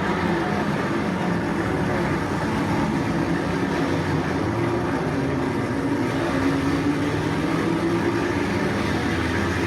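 A field of modified sports cars and Formula Junior racing cars running together on the track, a steady blend of several racing engines with no gaps.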